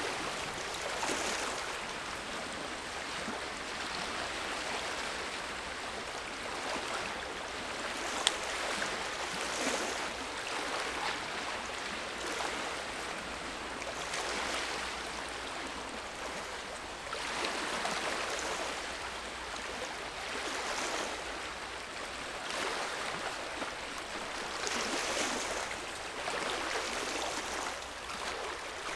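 Small lake waves lapping at the shore, a steady watery hiss that swells every few seconds, with one sharp click about eight seconds in.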